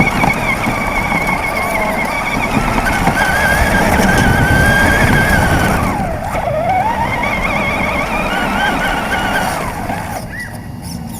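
RC car's motor whining as it drives, the pitch holding high, dropping sharply about six seconds in as it slows, then climbing again before fading near the end.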